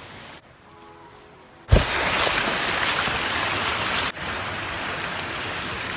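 Steady roar of rushing water in a few short clips cut together. The loudest clip starts about two seconds in with a low thump; the quieter clip before it carries faint tones.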